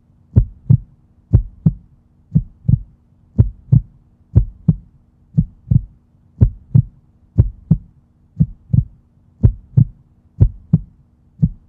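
Heartbeat sound effect: pairs of deep thumps, about one pair a second, over a low steady hum.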